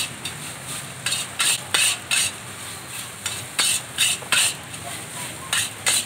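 Long metal spatula scraping and clanking against a steel wok in quick clusters of a few strokes about every two seconds, as fried rice is tossed. A steady sizzle of rice frying in hot oil runs underneath.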